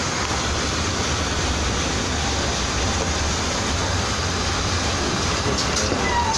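Automatic cartoning machine running steadily, packing glazed curd bars one at a time into cardboard cartons: a constant mechanical din over a low hum, with a few light clicks near the end.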